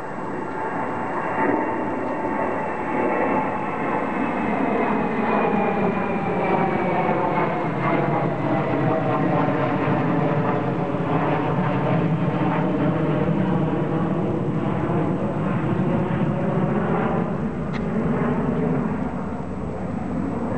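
Jet aircraft flying over: a steady rushing drone with whining engine tones that slowly fall in pitch, swelling over the first couple of seconds and then holding.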